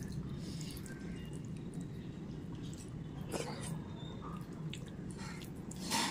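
Eating khichdi by hand: wet chewing and lip smacks with scattered small clicks, and fingers squishing soft rice on a steel plate. The sharpest click comes near the end, over a steady low hum.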